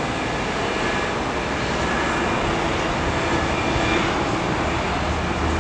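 Firefighting aircraft engines droning steadily, growing slightly louder.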